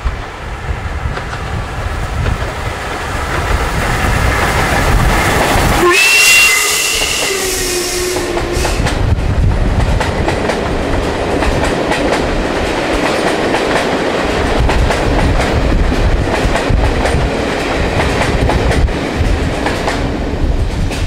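Steam-hauled passenger train approaching and growing louder until the locomotive passes beneath, with a brief whistle-like tone about six seconds in. Its coaches then roll past in a steady rumble and clatter of wheels on rail that fades near the end.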